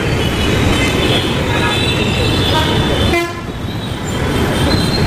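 Dense city road traffic, engines and tyres in a constant din with many vehicle horns honking. The noise eases a little about three seconds in as a short horn sounds.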